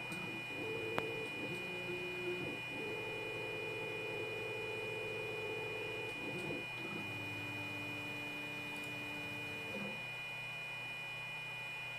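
Stepper motors of a TinyBlue desktop CNC router whining as the axes make a series of moves, each at a steady pitch with short pauses between. The longest move runs about three seconds, and the moves stop about ten seconds in. A steady high whine runs beneath, with a single click about a second in.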